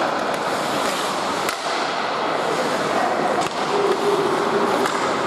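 Ice hockey play in an echoing rink: skates scraping the ice under a steady wash of sound, a few sharp clacks of stick on puck, and short calls from a voice in the second half.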